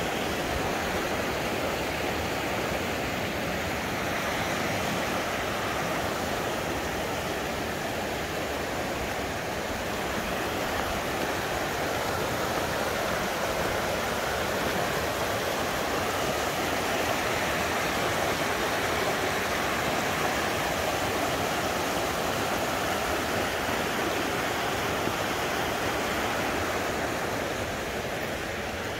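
A mountain creek rushing over rocks and boulders, a steady rush of water that eases slightly near the end.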